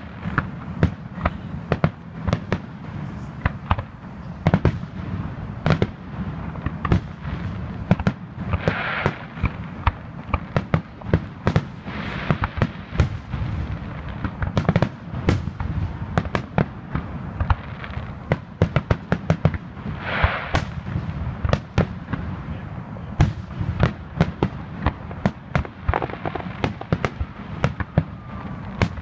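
Aerial fireworks shells bursting in a rapid barrage, several sharp bangs a second over a continuous low rumble, as in the build-up to a show's finale.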